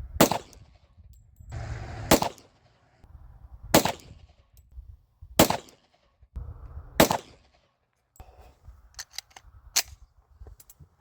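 Gen 4 Glock G29 10mm pistol, fitted with a 4.5-inch KKM barrel, fired five times in slow aimed fire, a shot every one and a half to two seconds. A few light clicks follow near the end.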